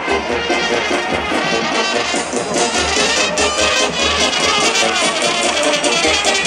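Serbian brass band music with trumpets and trombones, playing loud and fast, with the beat coming through more sharply about two and a half seconds in.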